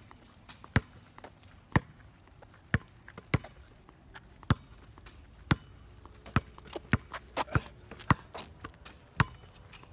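A basketball bouncing in a series of sharp single bounces, about one a second at first and then faster, about two a second, after about five seconds.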